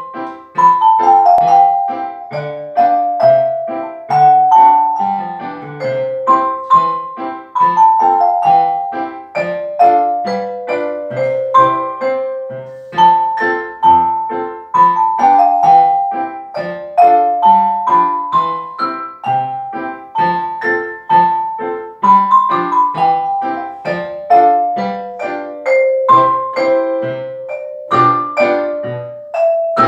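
Xylophone played with mallets, a quick stepwise melody of struck notes, over a piano accompaniment.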